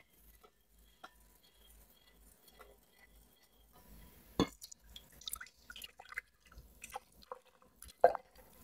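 Quiet kitchen sounds of custard mixture being whisked in a glass bowl and then poured through a metal mesh strainer into a glass measuring jug: light scattered clinks and ticks of metal on glass, with a sharp clink about four and a half seconds in and the loudest one about eight seconds in.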